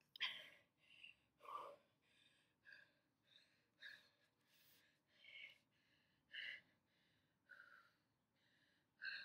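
A woman's faint, heavy breathing from exercise exertion: short gasping breaths in and out, roughly one a second, with the sharpest just after the start and again near the end.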